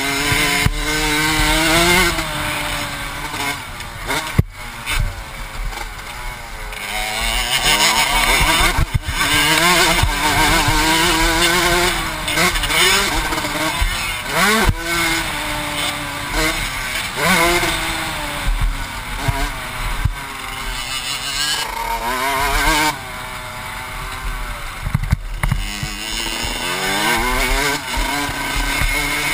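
Motocross bike engine heard from the rider's helmet, revving up and dropping back again and again as it is ridden hard round a dirt track, with wind noise and a few sharp knocks from the bike over bumps.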